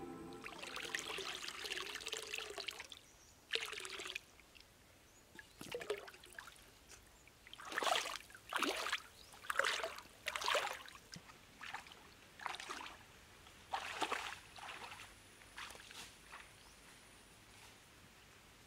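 Stream water splashing and sloshing in a series of short, irregular bursts, from hands working fish pieces in a metal bowl of water and legs wading through the shallow stream.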